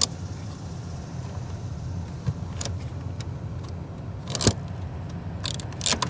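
Heater and AC controls of a 1994 Mazda B4000 being switched, giving several sharp clicks, the loudest about four and a half seconds in, over the steady low hum of the heater blower fan running.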